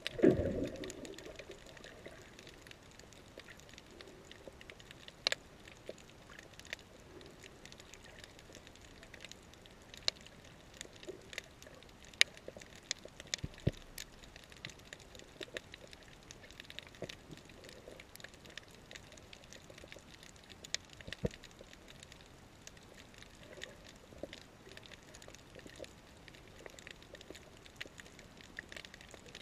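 Underwater sound on a shallow coral reef, heard through a GoPro's waterproof housing: a steady faint hiss with scattered sharp clicks and crackles, and a low thump at the very start.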